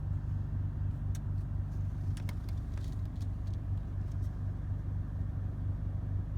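2016 Chevrolet Colorado's 2.8-litre Duramax four-cylinder turbodiesel idling with a steady low pulsing rumble, a rough idle that the owner reports came on after a highway drive. A few faint light clicks sound between about one and four seconds in.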